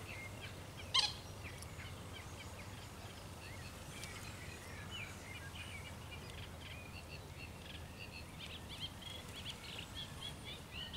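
Small birds chirping and twittering faintly over a steady low outdoor background noise, with one short click about a second in.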